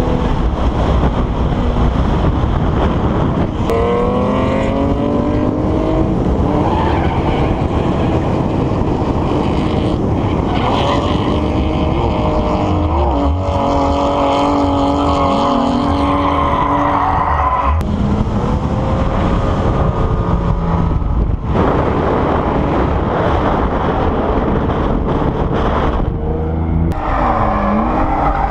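BMW E36 M3's straight-six engine revving hard at full throttle while drifting, its pitch climbing and falling with the throttle, over a continuous hiss of sliding tyres squealing.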